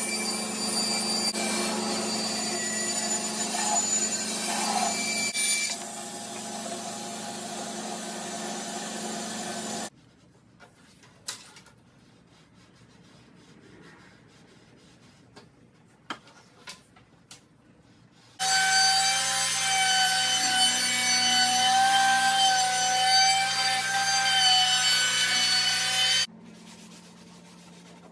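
Bandsaw running and cutting plywood. Its sound drops about five seconds in and it stops about ten seconds in. After a quiet stretch with a few clicks, a power tool runs steadily for about eight seconds and then stops.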